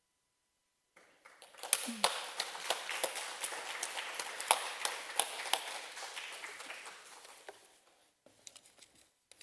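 Audience applauding: it starts about a second in, builds to a dense patter of claps, then thins out over several seconds, with a few last scattered claps near the end.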